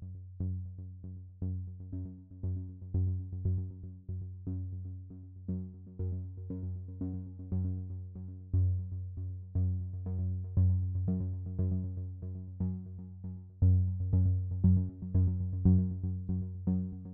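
Background electronic music: repeated synthesizer notes over a steady low bass note.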